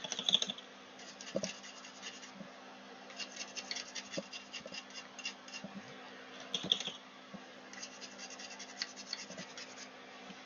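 Baby toothbrush scrubbing flux off a circuit board: spells of rapid, fine scratching strokes, a second or two each, with short pauses between.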